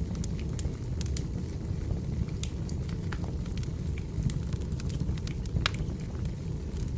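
Wood fire burning in a fireplace: a steady low roar with frequent irregular crackles and pops, one louder pop about two-thirds through.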